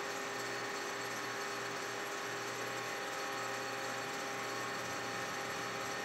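Metal lathe running steadily with a cutter spinning in the chuck, milling a keyway into a 1-inch shaft. The sound is an even machine whir with a constant hum.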